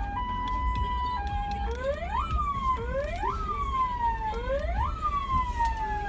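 Electronic siren, likely sounded from the van's PA speaker: a hi-lo tone alternating between two pitches, then three wails that each rise quickly and fall slowly, the last still falling at the end. A low vehicle rumble runs underneath.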